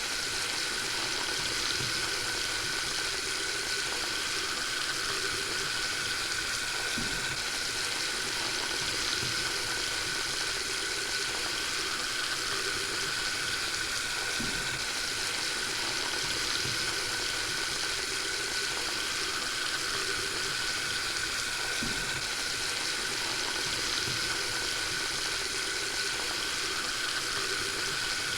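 Water running steadily from a faucet into a sink, a constant splashing hiss with a few faint low plops.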